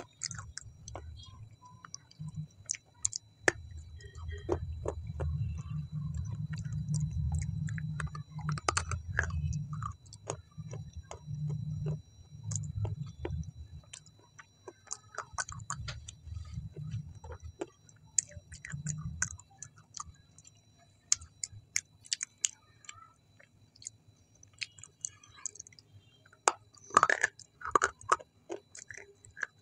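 Close-miked chewing of a mouthful of food with the mouth mostly closed: a dense low rumble of jaw and mouth movement through the first two-thirds, with many small wet clicks and smacks. Near the end comes a short run of louder, wetter mouth sounds as the lips part.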